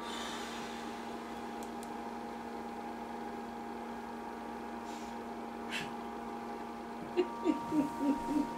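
Steady electrical hum with several fixed tones. About seven seconds in, a run of short, low hooting sounds starts, about four a second.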